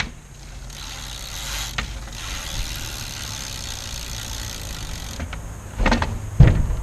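SE Bikes Big Flyer 29 BMX's rear hub freewheel ticking steadily as the wheel spins without pedalling. It stops about five seconds in and is followed by a couple of thumps, the loudest near the end.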